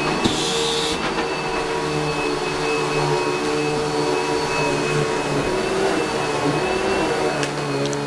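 Eureka The Boss SmartVac upright vacuum cleaner running steadily over a rug, a constant motor drone with a high whine on top. A brief high hiss comes about half a second in.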